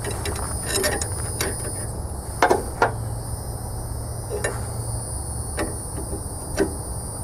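Sharp metallic knocks and clicks from a C-frame ball joint press being worked on a pickup's front suspension while pressing out a ball joint. About eight come at irregular intervals, the loudest two close together a little past two and a half seconds in.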